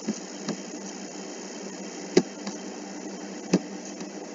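Steady background hiss with a few sharp clicks, the loudest about two seconds in and another about three and a half seconds in.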